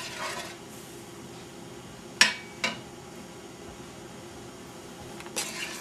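Two sharp metallic clinks about half a second apart, a couple of seconds in: a metal spoon knocking against a stainless steel sauté pan as a pan sauce is stirred. A low steady hum runs underneath.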